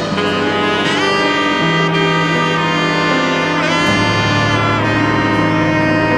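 Music with held, horn-like melody notes over a sustained bass line; the bass note steps down about four seconds in.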